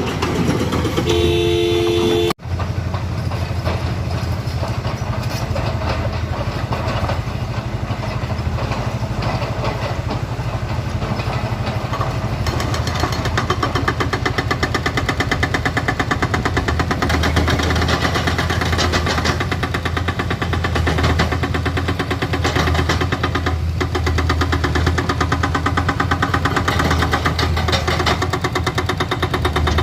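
Heavy excavator's diesel engine running under load, steady with a deep hum. About a second in, a horn sounds briefly for just over a second.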